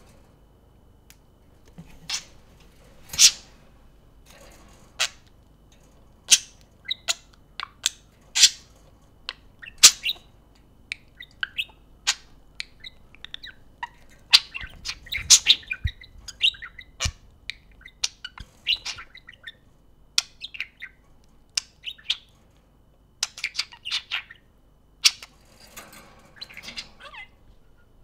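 Budgerigars chirping: dozens of short, sharp, high calls at irregular intervals, coming thicker around the middle and again near the end.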